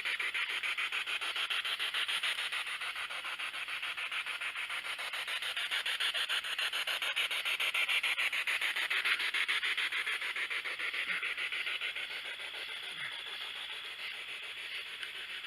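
Spirit box radio scanning through stations: a steady hiss of static, chopped into a fast, even stutter.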